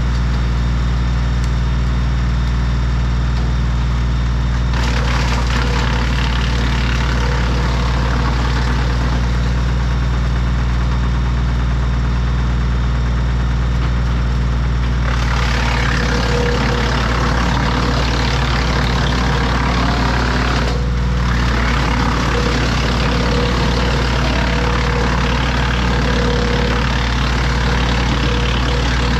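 Compact tractor engine running steadily, driving a tractor-mounted wood chipper. From about five seconds in, a rough grinding noise of branches being chipped joins it. The grinding grows louder about halfway through and drops out briefly around two-thirds of the way in.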